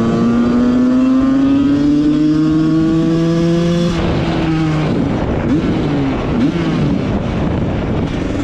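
Husqvarna 125 SM's tuned two-stroke engine under hard acceleration, its pitch climbing steadily for about four seconds, then dropping abruptly at a gear change and wavering unevenly before picking up again near the end.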